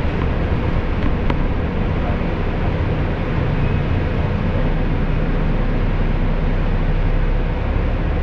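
Steady engine rumble and road noise heard from inside a road vehicle, which rolls to a stop and waits at a red light. A faint click sounds about a second in.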